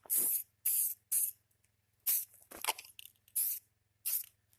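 Aerosol spray paint can spraying in about seven short hissing bursts a fraction of a second each, with brief pauses between, as a small chain is painted.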